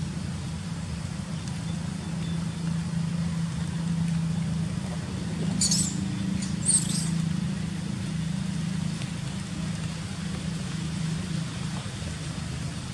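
A steady low hum throughout, with two short high squeaks from the baby macaque about six and seven seconds in.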